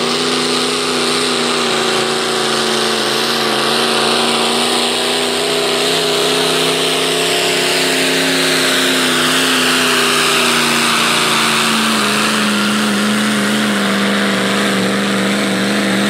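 Diesel engine of a 2005 Ford Super Duty pickup held at full throttle while pulling a weight-transfer sled, running at a steady high pitch with a high whine over it. The pitch sags a little in the last few seconds as the sled's load bogs the engine down.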